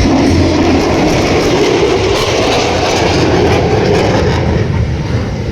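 Lockheed Martin F-35A's Pratt & Whitney F135 afterburning turbofan: a loud, steady jet roar as the fighter pulls away on thrust in a display manoeuvre.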